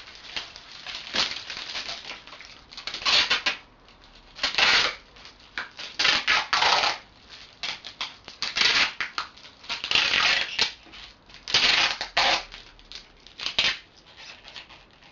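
Adhesive tape being pulled off the roll and wound round a bundle of bottles in repeated short pulls, about ten in all, each a rough ripping noise.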